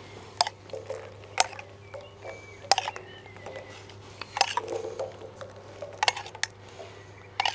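Kitchen utensils clinking and tapping now and then, a handful of short sharp knocks spread over several seconds, over a steady low hum.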